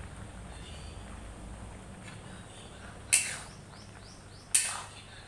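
Two sharp clinks about a second and a half apart, with faint short chirps between them.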